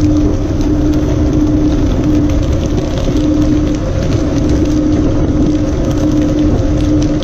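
Fishing boat's engine running steadily: a loud low drone with a hum that briefly drops out and returns about once a second.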